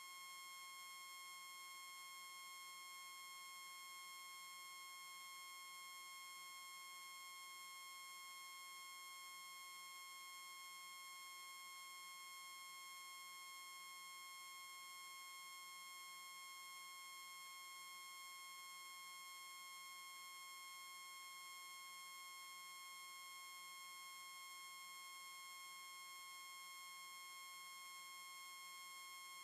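Faint, steady high-pitched electronic whine with a stack of overtones, never changing in pitch or level: background noise in the recording.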